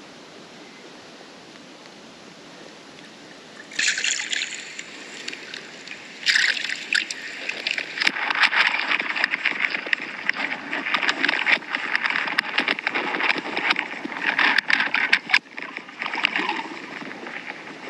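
A few seconds of steady hiss, then, from about four seconds in, irregular bursts of water splashing and sloshing with sharp clicks, played back through a phone's small speaker.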